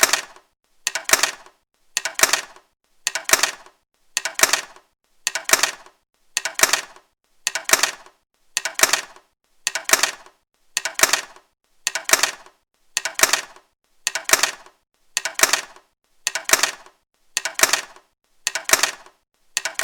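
Eyeglasses set down on a laptop, each landing a short clatter of small clicks as the frames and lenses hit and settle, repeated about once a second.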